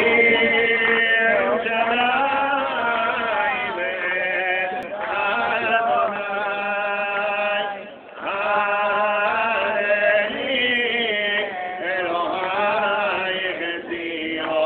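A solo voice chanting a slow melody in long, held, wavering notes, with a short pause for breath about halfway through.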